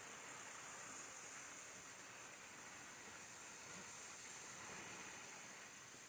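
Faint, steady rushing of a mountain stream mixed with high hiss.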